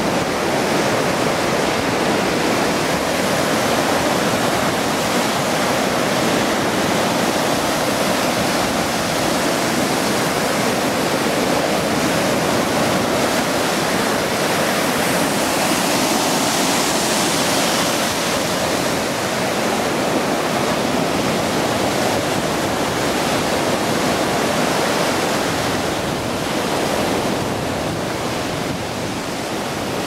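Small wind-driven sea waves breaking and washing up a stony beach: a steady, continuous rushing of surf.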